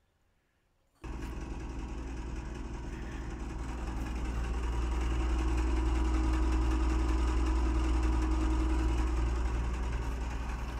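Fuel transfer pump and the engine driving it running steadily as diesel is pumped through a mechanical gallon meter. It starts suddenly about a second in and grows louder through the middle.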